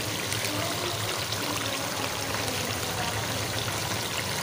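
Beef frying in ghee in a cooking pot, sizzling steadily, with yogurt added onto it.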